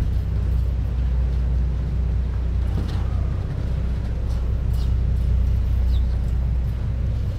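Steady low rumble of the car ferry Ishitegawa's diesel engines as the ship pulls away from the pier under way.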